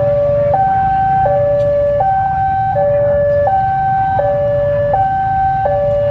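Two-tone electronic railway warning alarm sounding steadily, alternating a higher and a lower tone about every three-quarters of a second, over the low rumble of a CC 201 diesel locomotive moving slowly during shunting.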